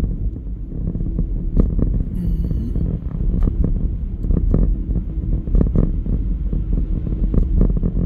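Steady low rumble of a car driving on a snow-covered road, heard from inside the cabin: tyre and engine noise, with a few light knocks along the way.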